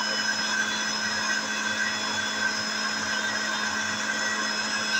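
Electric juicer-mixer's motor running steadily, its blade chopping raw red onion chunks in the jar, with a constant motor hum and whine.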